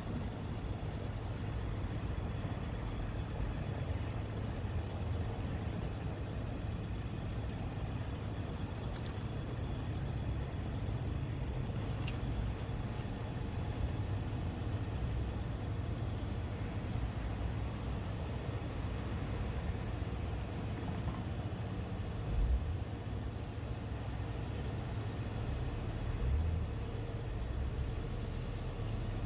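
A steady low rumble, like a running vehicle, with a few faint clicks and two short soft thumps in the second half.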